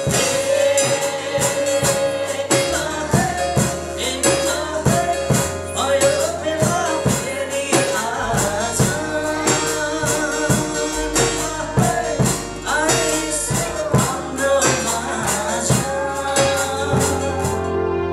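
A man singing a worship song to a strummed acoustic guitar, with a steady percussive beat.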